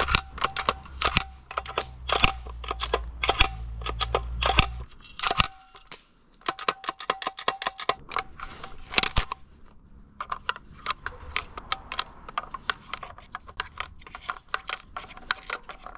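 Irregular clicking and knocking of an airsoft shotgun's revolving drum and CO2 shotgun shells being handled and loaded, plastic and metal parts snapping against each other.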